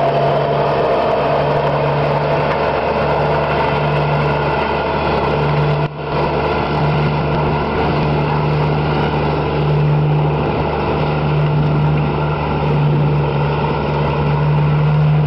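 Truck-mounted manure spreader at work: its engine and spreading gear running steadily with a constant low hum, dipping briefly about six seconds in.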